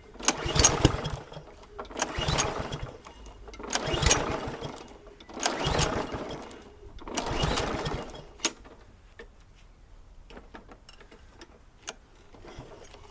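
Webb lawnmower's petrol engine being pull-started five times in a row, each pull of the recoil starter cranking it over for about a second without it catching. The fuel tap had been left off. Near the end there are only faint clicks.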